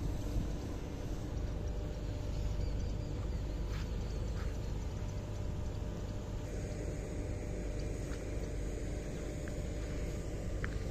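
Steady low outdoor rumble with a few faint, sharp snaps of a horse tearing grass as it grazes.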